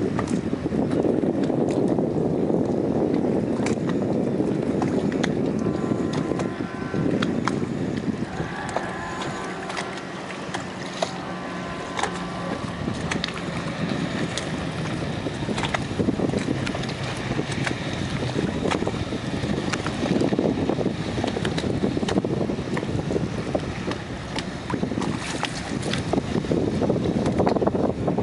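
Wind buffeting the microphone over open water, with a wakeboard boat's inboard engine running for several seconds in the middle as the boat passes.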